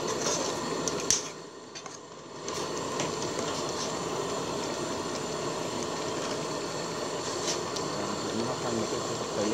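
Steady rushing hiss of a gas burner under a simmering pot of curry. There are a couple of light clicks, one about a second in and followed by a short dip in the noise, and another near the end.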